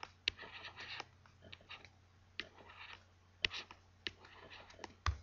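Stylus writing on a tablet: sharp taps at irregular intervals with short scratchy strokes between them as a word is handwritten.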